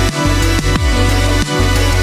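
Electronic background music with a heavy bass and a steady beat, its deep bass dropping in pitch about every second and a third.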